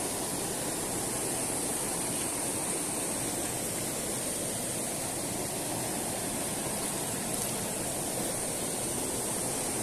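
Steady rush of a stream's flowing water, even and unbroken.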